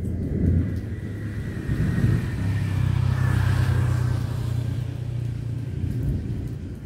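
A deep low rumble that swells about two seconds in, holds for a few seconds and then eases off.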